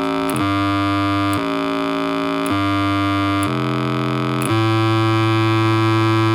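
Proton, a small DIY synthesizer run from a single chip and two AA batteries, playing a sustained buzzy tone through a little speaker. The note steps to a new pitch about once a second, five times, with a faint click at each change.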